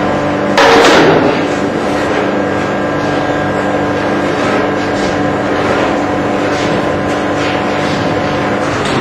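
Foundry melting furnace running with a steady roar and a held hum, a loud metallic clang about half a second in as a long iron rod strikes metal at the furnace, ringing briefly, then lighter knocks and scrapes from the rod.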